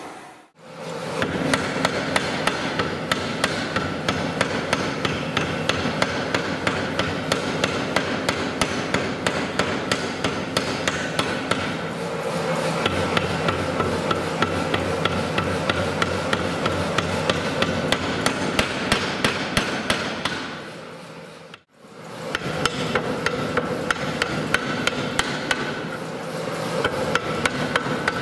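B&S Massey 150 kg self-contained pneumatic forging hammer working a red-hot steel bar, with rapid even blows of about three a second over the steady run of the machine. The blows drop out briefly a little past two-thirds of the way through, then resume.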